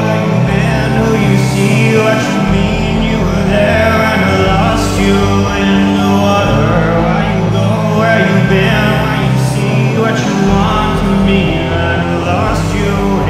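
Rock song with guitar, bass and a singing voice, playing as closing music.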